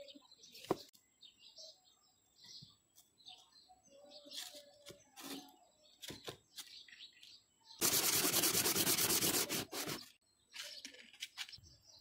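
Metal lock body rubbed by hand on sandpaper: a steady scraping for about two seconds, starting about two-thirds of the way in. Around it, birds chirp and a few small knocks and taps come from handling the lock.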